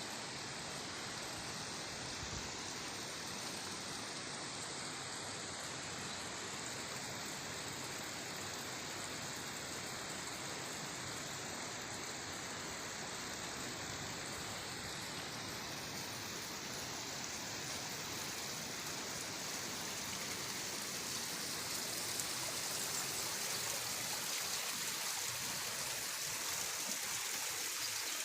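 Stream water running steadily, a constant rushing that grows a little louder near the end.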